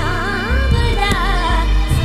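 Indian film song: a voice sings a wordless, ornamented melody that bends and wavers in pitch over a steady deep bass beat.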